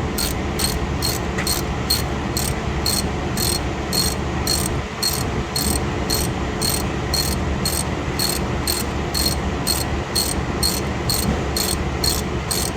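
Steady, evenly spaced high-pitched clicking, about three clicks a second, over a low steady hum.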